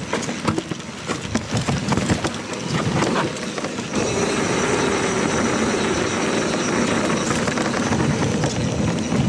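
Mountain bike clattering and rattling over rough trail, with many sharp knocks and clicks for about four seconds. Then a steady rush of tyre and wind noise as it rolls on.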